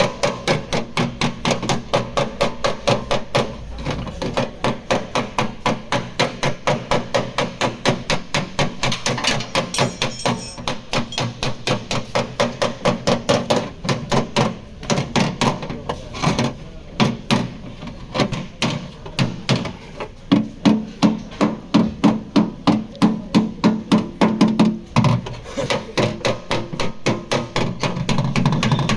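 Hand hammer beating the sheet metal of a Toyota Aqua's rear quarter panel in quick, even blows, about three a second, with a few short pauses: panel beating to straighten the damaged panel.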